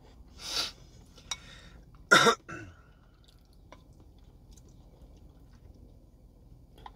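A woman coughs loudly once about two seconds in, with a smaller cough just after it and a short breathy sound about half a second in. A light click sounds between them.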